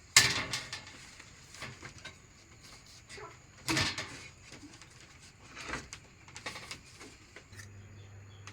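A series of sharp knocks and clatters of things being handled, the loudest right at the start and another strong one a little before halfway. A steady low hum comes in near the end.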